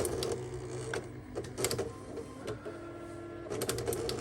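Apple StyleWriter inkjet printer running its power-on self test: motor whine that shifts pitch in steps, with clicks from the print mechanism.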